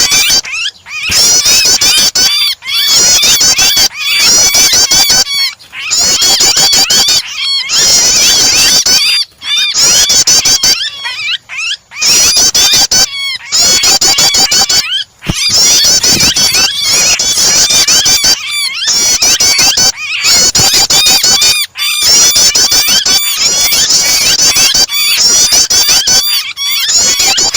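Prenjak (prinia) chattering combined with the frantic cries of a trapped bird, in a bird-keeping starter track: fast, loud, high chirps and trills in bouts of one to three seconds with brief gaps between.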